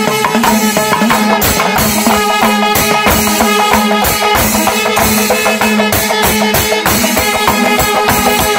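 Kerala temple ensemble playing: curved brass kombu horns blowing long held notes over fast, steady drumming and clashing cymbals.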